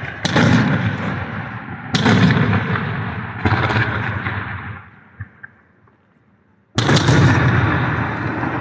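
Fireworks exploding overhead: four loud booms, each trailing off over a second or more, with a short lull before the last one.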